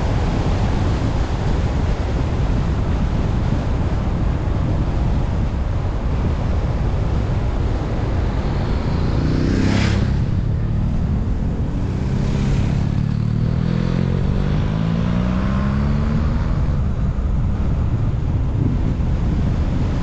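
Steady wind and road rumble from a car driving along. About halfway through, another vehicle's engine comes in with two short whooshes of air, its note rising over several seconds before fading back into the road noise.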